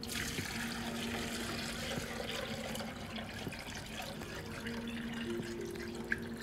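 Cooking oil pouring in a steady stream into a plastic blender jar, the jar filling.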